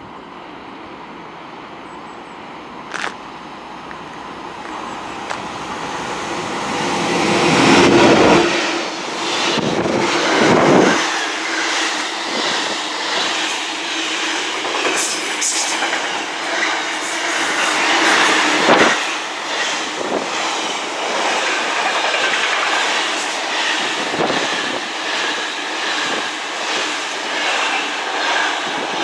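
Class 66 diesel locomotive hauling a container freight train, growing louder as it approaches and peaking as it passes about eight seconds in. After it comes a long rake of container wagons rolling by with steady wheel noise and clatter.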